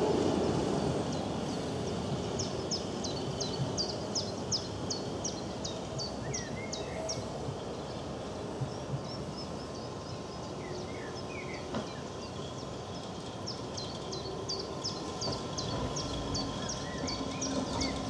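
Tram running on the tracks, its rumble fading as it moves off, leaving a low steady hum. A small songbird sings two runs of quick, high, descending notes. Near the end the rail rumble rises again as another tram approaches.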